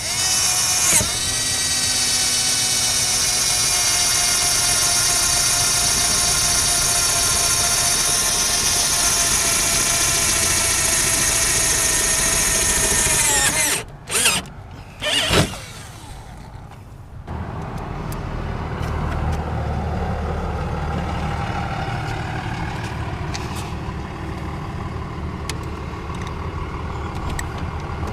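Electric drill motor running at a steady high whine for about thirteen seconds, then winding down, followed by a few short bursts of the same. After that a quieter, low engine rumble carries on.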